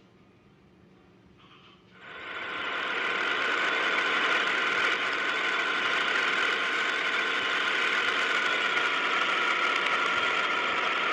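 A machine starting up about two seconds in, rising over about a second and then running steadily with a constant whine.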